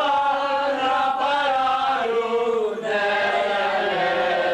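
A roomful of people singing a song together in long held notes, the melody moving to a new phrase about two and three seconds in.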